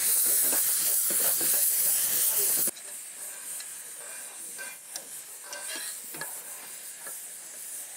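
Loud steady hiss from cooking at a gas stove, cut off abruptly about three seconds in. After it comes a quieter sizzle of food frying in a pan.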